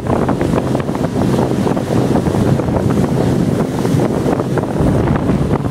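Wind buffeting the microphone over the steady drone of a speedboat's engine and the hull rushing through the water at speed.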